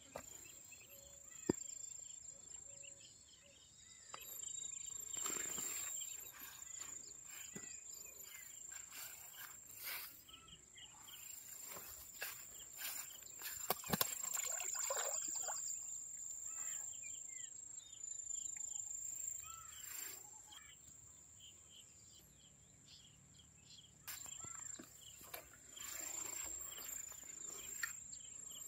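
Insects trilling steadily at a high pitch, with scattered bird chirps. Over them come bursts of rustling grass and handling noise as the fish is carried to a keep basket among the weeds, and two sharp clicks, one early and one about halfway through.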